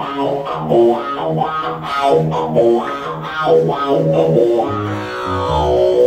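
Electric guitar played alone during a sound check: a run of single picked notes, with a few low bass notes coming in near the end.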